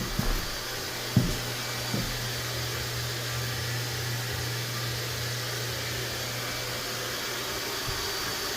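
Steady whir of an electric blower motor with a constant low hum, with a few light knocks in the first two seconds.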